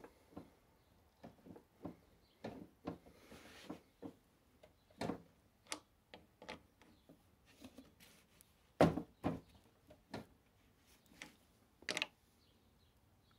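Irregular clicks and knocks of metal and plastic lawnmower wheel parts and tools being handled, with a short scrape about three seconds in; the loudest knocks come about nine seconds in and again near the end.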